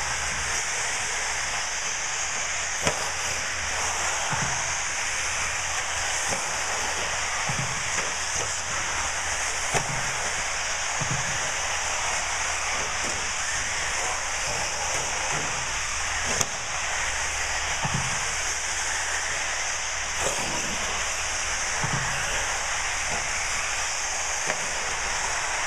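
Eighth-scale radio-controlled off-road buggies racing on a dirt track: a steady hiss of tyres and motors, with scattered sharp knocks and low thumps every few seconds.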